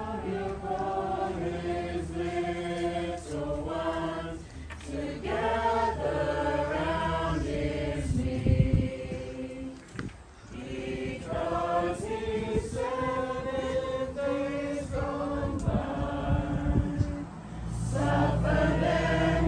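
A congregation of men and women singing a hymn together in held, sustained notes, with a short break about ten seconds in.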